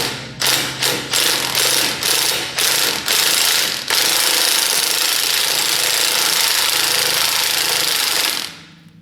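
Impact wrench run in reverse, hammering at an old bolt to loosen it. It fires in several short bursts, then runs in one long hammering stretch for about four and a half seconds before stopping near the end.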